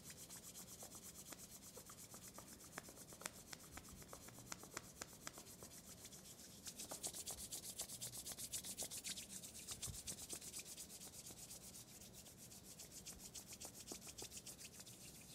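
Palms rubbed briskly back and forth against each other: a faint, dry swishing in a fast, steady rhythm that grows a little louder about seven seconds in.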